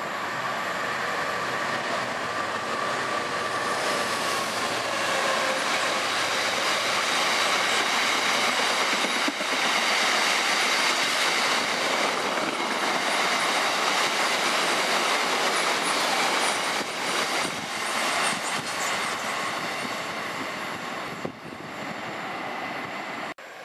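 A Freightliner Class 66 diesel locomotive draws near, then its long train of loaded box wagons rolls past on the rails. The noise builds over the first few seconds, stays loud while the wagons pass, fades as the tail of the train moves away, and cuts off abruptly just before the end.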